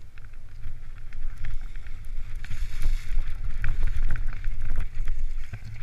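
Wind buffeting the microphone of a bike-mounted camera, with the rattle and scattered clicks of a cyclocross bike riding over rough ground, louder from about a second in.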